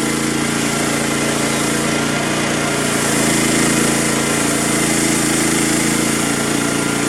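Frontier OS27 portable bandsaw mill with its small gasoline engine running steadily under load as the band blade cuts through an oak log. It gets slightly louder around the middle.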